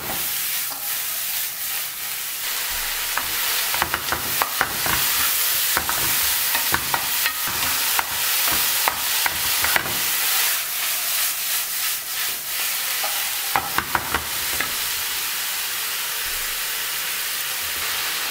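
Sliced mushrooms sizzling over high heat in a little leftover oil in a nonstick frying pan as they are stir-fried, with a wooden spatula scraping and tapping against the pan in clusters of quick clicks.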